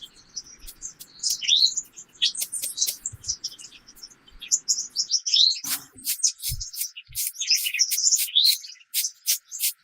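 Small songbirds chirping and calling, many quick high chirps with a few rising notes, growing busier after about five seconds.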